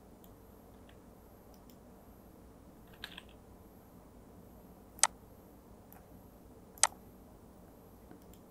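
Computer mouse clicking over a low steady room hum: a soft double click about a third of the way in, then two sharp single clicks a couple of seconds apart in the second half.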